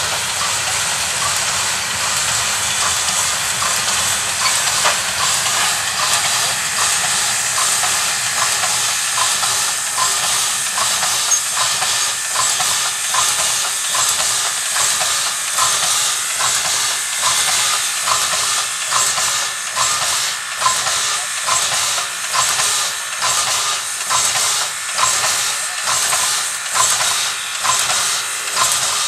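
Ty2-class two-cylinder 2-10-0 steam locomotive working under load, its exhaust chuffing in a steady beat about twice a second over a continuous hiss of steam. The beats grow sharper and more distinct through the second half.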